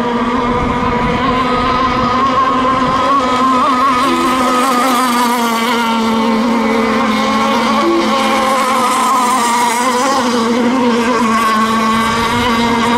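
Radio-controlled race boats running flat out across the water: a steady, high motor tone that holds its pitch, with a higher tone wavering slightly, over the hiss of spray.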